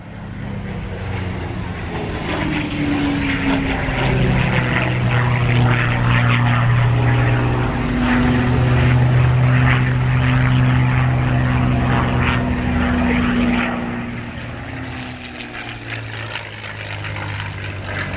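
Merlin V12 engine and propeller of a P-51 Mustang in flight, a steady pitched drone that grows louder over the first few seconds and shifts in pitch as the aircraft manoeuvres. It drops off noticeably about fourteen seconds in.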